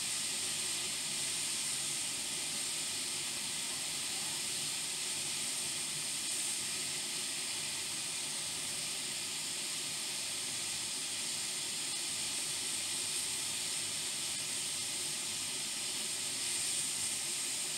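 Hot air rework station blowing a steady hiss of hot air onto a laptop motherboard MOSFET, heating its solder to desolder and lift the part off.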